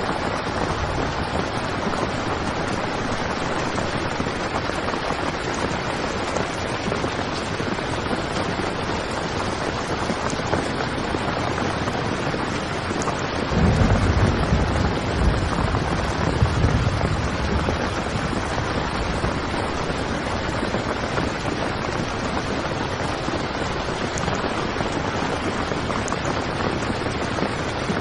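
Heavy rain drumming steadily on a tent. A deeper low rumble swells for about three seconds near the middle.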